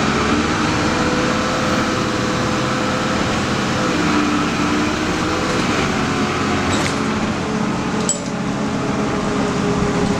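Interior sound of a 1997 Nova Bus LFS under way: the engine and drivetrain running with a steady whine over road noise. Two sharp clicks, about seven and eight seconds in.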